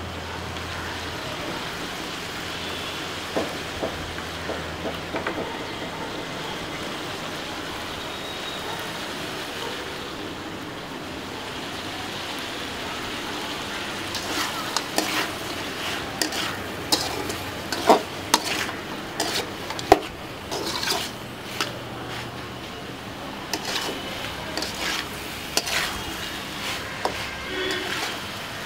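Chicken frying with a steady sizzle in an aluminium kadai. In the first half, a knife taps lightly a few times, chopping coriander on a wooden board. From about halfway, a metal spatula stirs the chicken, scraping and clinking sharply and repeatedly against the pan.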